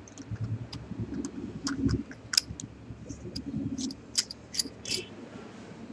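Irregular small metal clicks and light scraping as the lens cap of a Huygenian microscope eyepiece is fitted and screwed back onto its metal barrel by hand, with soft handling noise.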